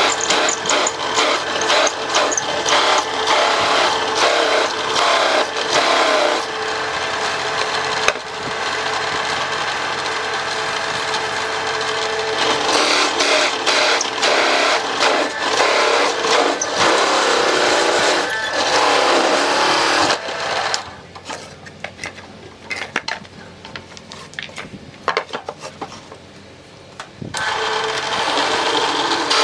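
Drill press spinning an adjustable circle cutter through a wooden board, a loud rough steady cutting noise as it cuts a round hole. About 20 seconds in the cutting stops and it drops much quieter for several seconds, with a few knocks, before the cutting starts again near the end.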